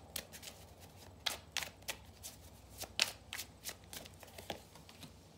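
A deck of tarot cards being shuffled by hand: a run of irregular light card clicks and slaps, several a second, the sharpest about three seconds in.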